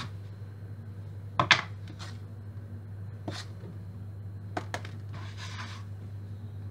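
Several sharp knocks and clicks of kitchen handling as pizza dough is divided on a work board, the two loudest close together about a second and a half in, with a brief rustle near the end, over a steady low hum.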